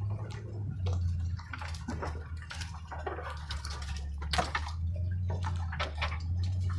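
Ford F-250 pickup pushing through tall weeds, heard from inside the cab: a steady low engine hum under a constant irregular crackling and swishing as stalks scrape and snap against the hood, windshield and body.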